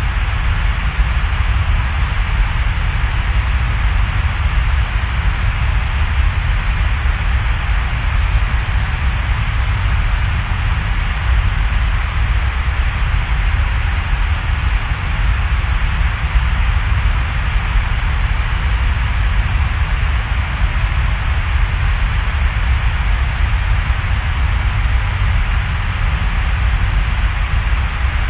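Steady, even noise ambience: a continuous hiss with a deep rumble underneath, with no breaks or separate events, of the kind of rain or white-noise track played for studying.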